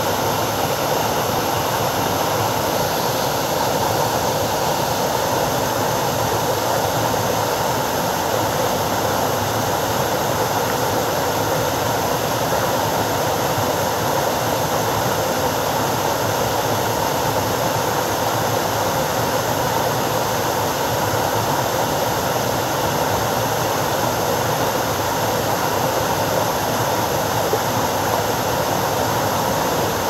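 Small waterfall cascading over rock ledges into a pool: a steady, unbroken rush of falling water.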